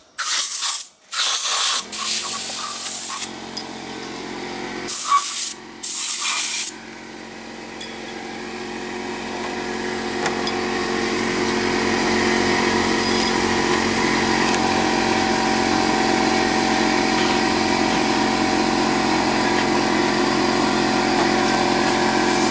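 Compressed air blasting from a blow nozzle in six short bursts over the first several seconds, followed by a small engine running steadily, which grows louder around ten seconds in and then holds.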